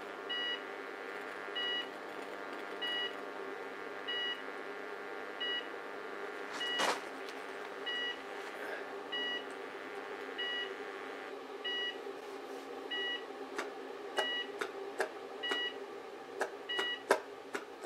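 Microwave oven transformers humming steadily under load as they drive high voltage into a burning cooker switch, with a short electronic beep repeating about every 1.2 seconds. A louder crackle comes about seven seconds in, and from about three-quarters of the way through, sharp irregular snaps of arcing and burning.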